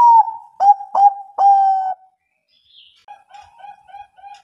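Zebra dove (Bangkok-strain perkutut) cooing: four loud, clear notes in the first two seconds, the last one held longer, then after a short pause a faint, quick run of short cooing notes, about six a second.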